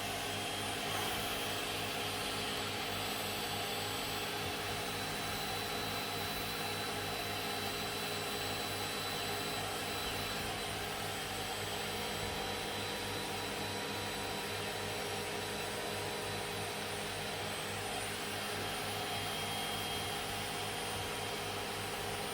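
A small electric blower runs steadily, an even whirring hum with a constant pitch.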